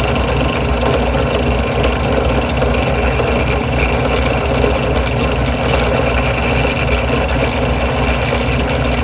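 Small benchtop drill press running steadily with a low hum while its 1/8-inch Glastar bit drills through a sheet of glass under water.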